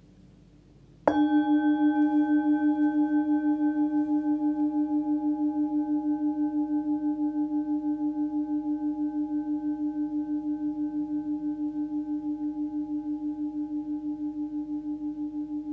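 A 16 cm hand-forged Tibetan singing bowl tuned to about 299 Hz (the note D), struck once about a second in, then ringing on with a low hum and several higher overtones. The ring pulses about three to four times a second as it slowly fades.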